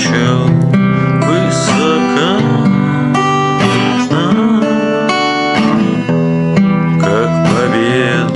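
Acoustic guitar played solo, picking an instrumental melody over chords.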